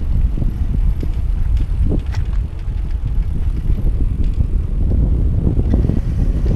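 Wind buffeting the microphone during a bicycle ride: a constant low rumble, with scattered small clicks and rattles from the moving bike.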